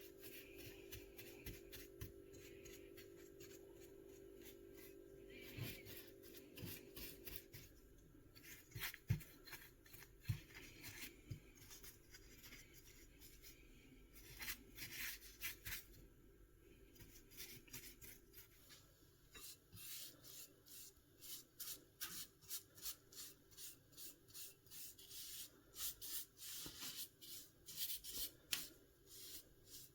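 Faint strokes of a paintbrush laying epoxy enamel onto the metal parts of an old hand plane. Soft rubbing and scraping that settles into a steady back-and-forth of about one to two strokes a second in the second half. A steady low hum sounds under the first several seconds.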